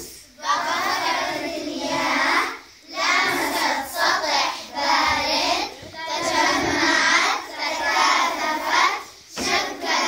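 A group of young children singing together in unison, in phrases of a few seconds each with short pauses between them.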